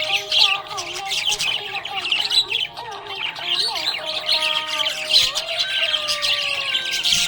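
A group of budgerigars chirping and chattering without a break, rapid high chirps over slower sliding whistles.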